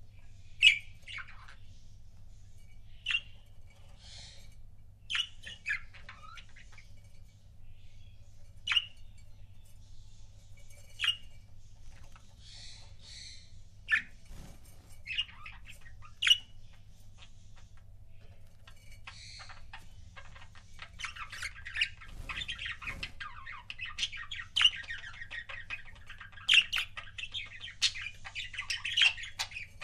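Pet budgerigars calling: sharp single chirps and squawks every second or two, then, about two-thirds of the way through, a dense continuous chattering warble.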